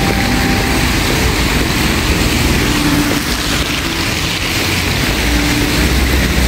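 Steady rushing street noise in the rain: falling rain mixed with passing traffic, strong in the low end.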